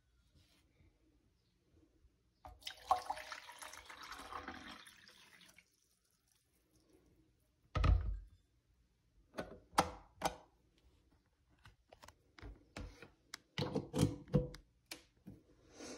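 Water poured for about three seconds, then a series of sharp plastic thunks and clicks from a small single-serve coffee maker being handled.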